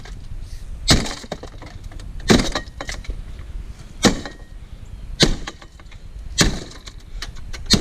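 A sledgehammer smashing the plastic and metal remains of a wrecked truck's dashboard. It strikes six times, about every second and a half, and each blow is followed by cracking and clattering debris.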